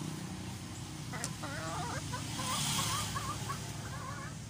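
Chicken clucking in a run of short, wavering calls, starting about a second in, over a low steady hum.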